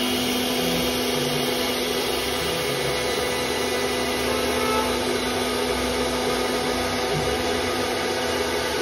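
CNC router spindle running steadily as its bit engraves a curved groove into a board: an even motor whine over the noise of the cut, with no change in pitch.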